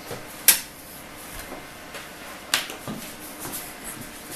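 Sharp clicks and knocks of tools or hard objects being picked up and handled on a workbench: a loud click about half a second in and another about two seconds later, with a fainter knock just after it, over a low steady hiss.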